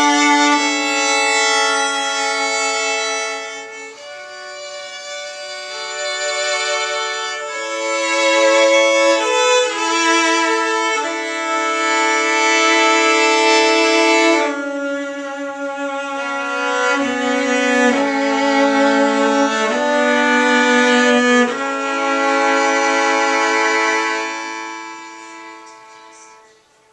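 Fiddle and cello playing a tune together, bowed in long held notes; the last note dies away near the end.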